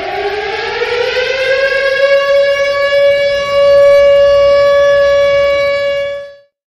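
Siren winding up: a loud rising tone that levels off to a steady pitch, holds for several seconds, then stops near the end.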